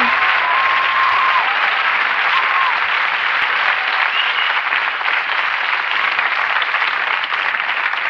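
Audience applauding and cheering, with a few pitched whoops or whistles over the clapping, which thins slightly near the end.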